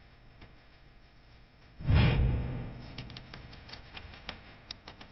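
A sudden low boom about two seconds in that fades over a second or two, followed by scattered faint clicks.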